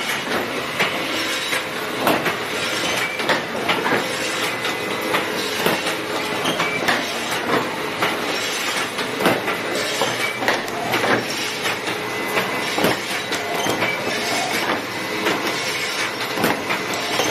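Automatic chain rotator hook wire-forming machine running: a continuous clatter of cams, gears and forming dies, broken by sharp metallic clanks roughly every half-second to second, over a faint steady whine.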